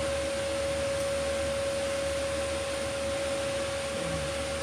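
Steady hum of a kitchen appliance: a single unwavering tone over even fan-like hiss.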